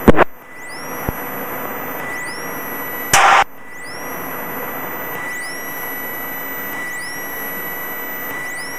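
Steady hiss of light-aircraft cabin noise heard through the headset intercom audio feed, with a thin steady whine over it. Two short loud radio bursts break in, one right at the start and one about three seconds in.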